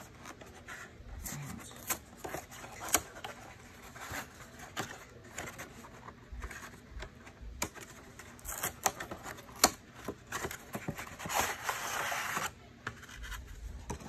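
Small cardboard product box being opened by hand: scattered taps and clicks of the flaps and card, with a longer stretch of rubbing and scraping near the end.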